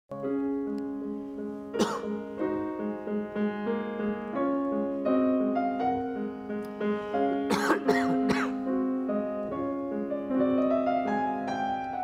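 Grand piano playing a slow piece with sustained notes, while an audience member coughs once about two seconds in and then in a fit of several coughs in quick succession just past the middle.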